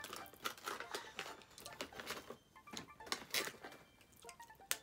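Plastic snack packets crinkling and rustling quietly as they are handled, in short scattered crackles, with a sharper crackle near the end.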